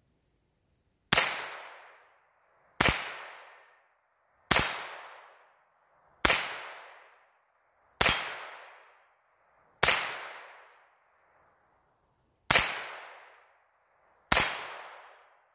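Eight single shots from a Hammerli TAC R1 .22 LR semi-automatic rifle, fired one at a time about every second and a half to two seconds, with a slightly longer pause before the last two. Each crack rings out and fades over about a second.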